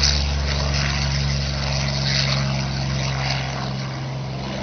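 Propeller-driven World War II fighter's V-12 piston engine running at takeoff power as the plane climbs away after takeoff: a steady propeller drone that slowly fades.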